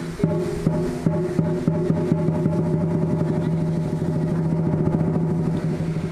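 Lion dance percussion: drum and cymbal strikes that speed up into a fast, continuous roll over a steady ringing tone.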